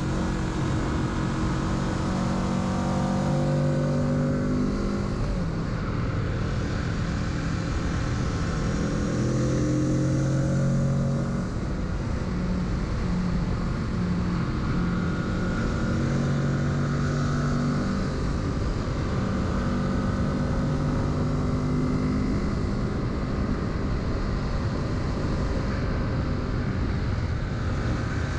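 Kawasaki Z650's parallel-twin engine under way. Its note climbs and drops back several times as the rider accelerates and shifts, over a steady rush of wind noise.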